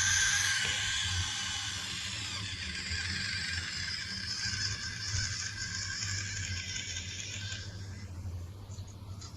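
Salamander chirring: a continuous high, rasping chirr with a dense, fine-grained texture, which thins near the end and stops just before a new take begins. A faint low hum runs underneath.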